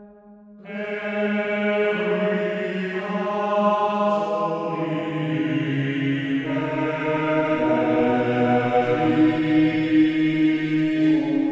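Soundtrack music of choral chant: voices holding long sustained notes that change pitch every few seconds, entering about half a second in after a short lull.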